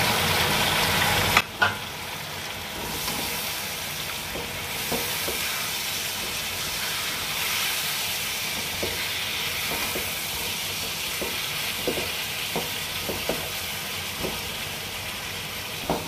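Chicken and chopped tomatoes sizzling in oil in a non-stick wok, with a spatula stirring and scraping against the pan in light, scattered clicks. The sizzle is louder for the first second or so, then drops suddenly to a softer, steady frying hiss.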